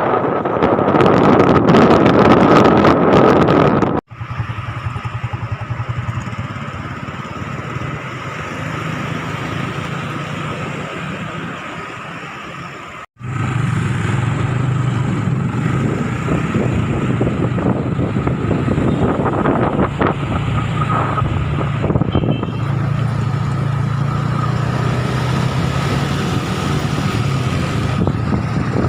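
Road vehicle engine running with road and wind noise while driving, in three stretches broken by two sudden cuts.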